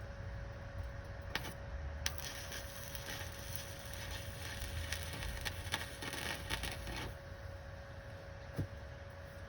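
Electric welder arc crackling for about five seconds while a bead is run, starting about two seconds in, with a few sharp pops and a steady hum underneath.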